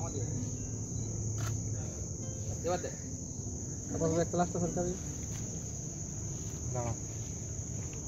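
Crickets trilling steadily in a high, unbroken band, with a few brief faint voices around the middle.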